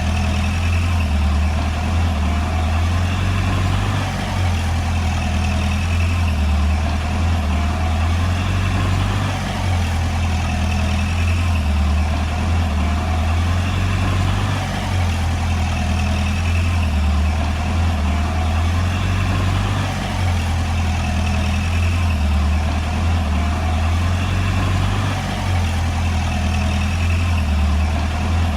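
Diesel engine of a Komatsu D20P crawler bulldozer running steadily under working load, a deep continuous drone whose low hum swells and eases every few seconds.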